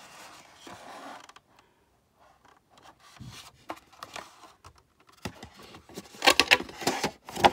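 Hard plastic and cardboard packaging being handled: rubbing and scraping of the hat press's plastic base against its box, with scattered light clicks. Near the end comes a louder cluster of knocks and scrapes.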